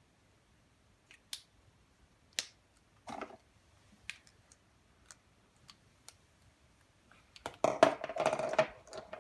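Scattered small clicks and crinkles of toy packaging being handled, then a longer, louder stretch of rustling and crackling near the end, as of a plastic bag being handled.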